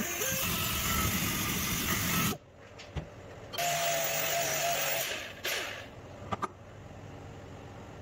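Hand-held angle grinder grinding and smoothing a cast metal Ford badge, in two bursts: a loud stretch of about two seconds, a break, then about a second and a half more with a steady whine before it winds down. A couple of sharp clicks come near the end.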